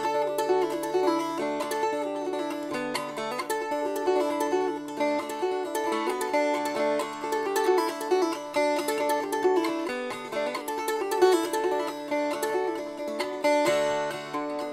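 Background music: an acoustic tune of quickly picked plucked strings.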